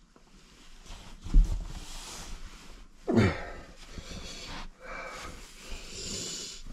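A man breathing hard through his mouth, with a falling, drawn-out exhale about three seconds in, his mouth burning from very hot sauce. The fabric of a hoodie rustles as he pulls it off over his head.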